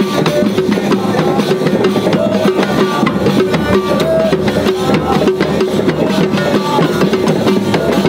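Moroccan folk troupe playing frame drums and small stick-beaten drums in a fast, dense rhythm, with men's voices singing over the drumming.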